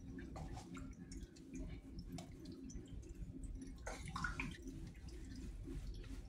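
Compressor oil dripping and trickling faintly as it drains from a screw compressor into a container, over a low steady hum with a few light clicks.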